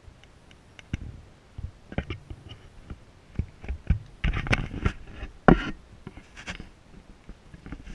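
Handling noise on a handheld camera's microphone: irregular clicks, rubs and knocks, busiest from about four seconds in, with one loud thump about five and a half seconds in.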